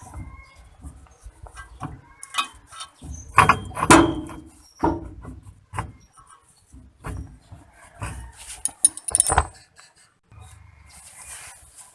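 Hand tools and metal parts clinking and knocking during work on a vehicle's differential: a scattering of irregular metallic clicks, with the loudest knocks about four seconds in and again near nine seconds.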